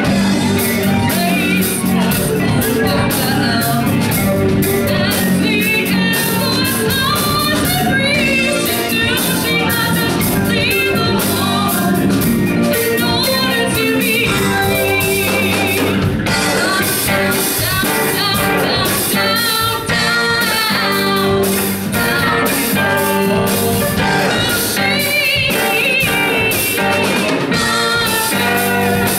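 Live band playing: a woman singing over electric keyboard, electric guitar, bass guitar and drum kit.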